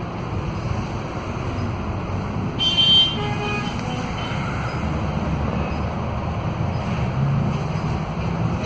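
Cabin noise of a Scania K320UA articulated bus under way: the steady low running of its five-cylinder DC09 diesel and drivetrain, with road noise. About three seconds in, a brief high-pitched toot cuts through and is the loudest sound.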